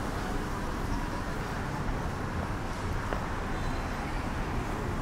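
Town street ambience: a steady low rumble of road traffic.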